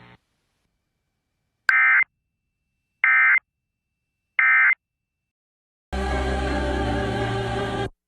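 Three short, identical bursts of warbling digital data tone, evenly spaced about 1.3 seconds apart: the EAS/SAME end-of-message code closing a broadcast severe thunderstorm warning. About six seconds in, a louder, dense, noisy sound starts and runs for about two seconds.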